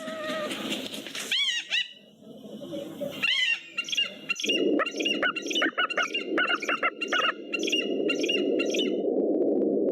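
Bird of prey calling: two single down-slurred screams, then from about four seconds in a rapid run of sharp repeated calls, about three a second, that stops near the end. A steady rushing noise lies under the run of calls.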